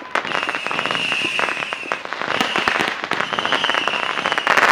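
Many fireworks and firecrackers going off at once: a dense, fast popping and crackling. A high, thin tone comes and goes over it in stretches of about a second.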